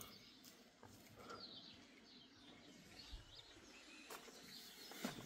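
Near silence: faint outdoor ambience with a few faint bird chirps and an occasional soft click.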